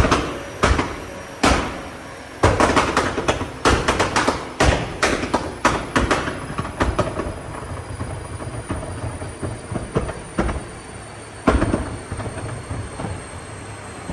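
Tuned Nissan GT-R R35's twin-turbo V6 exhaust firing loud bangs and pops over a low engine rumble: rapid irregular cracks for the first several seconds, then fewer, with one more big bang later on.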